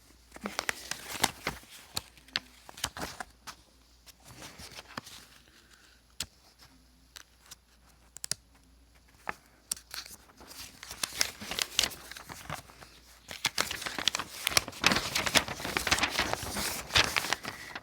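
Paper and card rustling and crinkling as greeting cards and a sheet of paper are handled, with scattered sharp crackles that grow thick and busy over the last few seconds.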